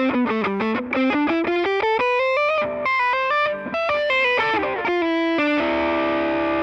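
Electric guitar playing rapid picked single-note runs that climb and fall in pitch, ending about five and a half seconds in on a held chord left to ring.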